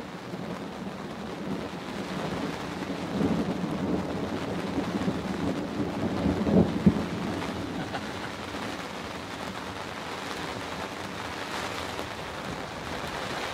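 Thunder rolling over steady rain on a pop-up hunting blind. The rumble builds from about three seconds in and peaks in a sharp loud clap around six to seven seconds, then fades back to the rain.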